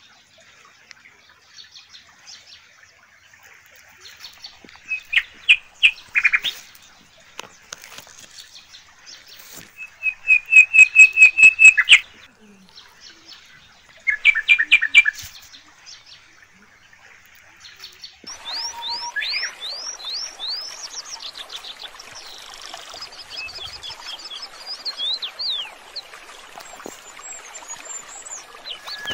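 Small birds singing and calling, with short trills of rapid repeated notes; the loudest trill comes about ten seconds in. From about two-thirds through, a steady rushing noise sits under further chirps and quick whistled glides.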